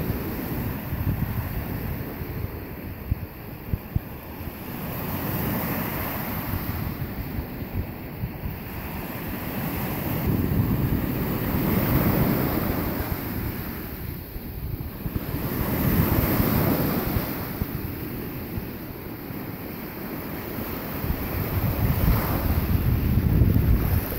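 Small Caspian Sea waves breaking and washing up a shell-and-pebble beach, the surf swelling and ebbing about every five seconds. Wind buffets the microphone throughout.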